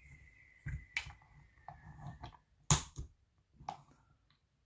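Small clicks and knocks from a lever-operated watch crystal press being pushed down on a Seiko SKX013 case, then a sharp snap a little past halfway as the original crystal pops out of the case, the bezel coming off with it.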